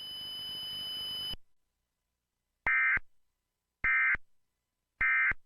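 Three short, identical screeching data bursts about a second apart: the Emergency Alert System's SAME end-of-message code (NNNN), sent three times to close the alert. Before them a faint hiss with a thin steady whine cuts off about a second and a half in.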